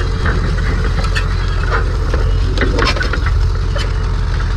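1941 Farmall H tractor's four-cylinder gasoline engine running steadily with a low pulsing beat, with a steady whine and irregular sharp cracks and knocks over it.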